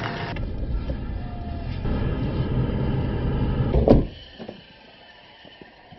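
Car driving along a rough dirt track, a steady low rumble of engine and road noise with rattles. It cuts off abruptly with a sharp click about four seconds in, leaving only faint outdoor background.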